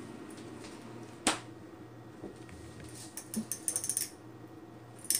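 A sharp click about a second in, then a quick run of clicks and rattles between about three and four seconds in, and one more click near the end, over a faint low hum.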